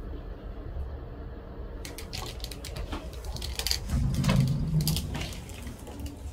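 Steady low rumble of a moving elevator car, with rustling and small knocks of a handheld phone and clothing from about two seconds in, and a brief louder low sound around four seconds in.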